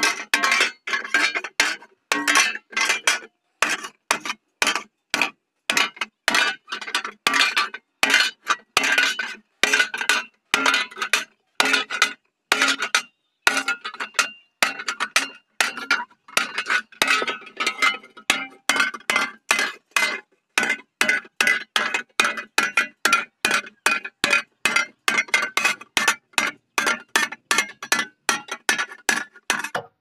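Small hand hammer striking a thin iron sheet laid over a steel bar, forming it into a pipe: quick metallic clinks with a short ring, about two or three blows a second.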